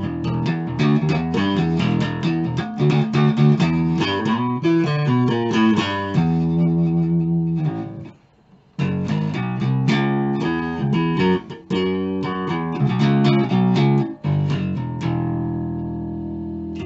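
Neck-through Chinese copy of a Rickenbacker electric bass played through a guitar amp on its bridge pickup: a run of quick plucked notes, a short break about eight seconds in, then more notes ending on one long ringing note. Picked up by a webcam microphone.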